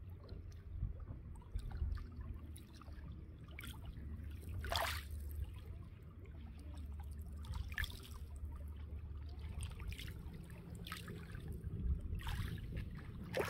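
Small waves lapping and trickling over a pebble shore at the water's edge, with a few louder splashes, over a low steady rumble.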